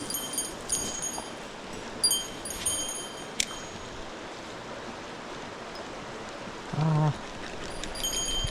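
Mountain stream flowing steadily, with a small bell jingling a few times near the start and again near the end. A short low buzzing tone about seven seconds in is the loudest sound.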